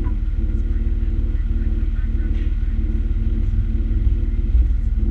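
Fire engine's diesel engine running at a steady speed, a low drone, with a deeper rumble growing louder near the end.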